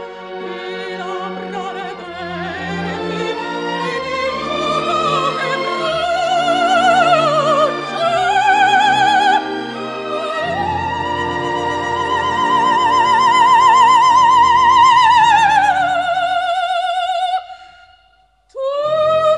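Operatic soprano singing a slow aria with wide vibrato over orchestral accompaniment, swelling into a long held high note in the middle. Near the end the sound breaks off into a short pause, and then the voice comes back in. The recording is an old one from 1958.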